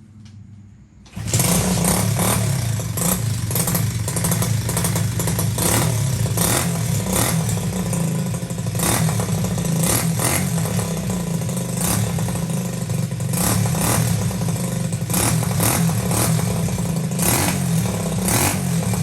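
Lifan 125 single-cylinder four-stroke engine in a Honda SL70 minibike fires up about a second in and keeps running on choke from a cold start.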